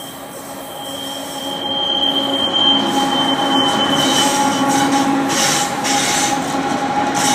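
Union Pacific freight train passing close by on a curve: the diesel locomotives' engines run with a steady hum while the wheels give off a steady high squeal on the curve. The sound grows louder over the first few seconds as the locomotives come alongside, then stays loud as the cars roll past.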